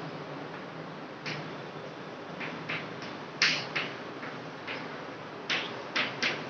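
Chalk writing on a blackboard: about a dozen short, irregular taps and scrapes as letters are formed, the loudest about halfway through, over a steady background hiss.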